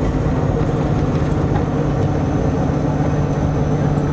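Vehicle engine running at steady cruising speed of about 60 km/h, heard from inside the cabin as a constant low hum over road noise.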